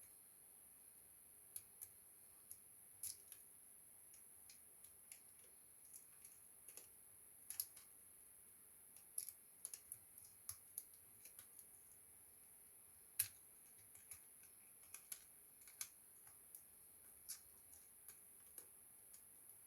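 Small plastic clicks and taps, irregular and scattered, from hands working on an Acer Aspire E1-432 laptop's keyboard during its replacement, with one sharper click about two-thirds of the way through.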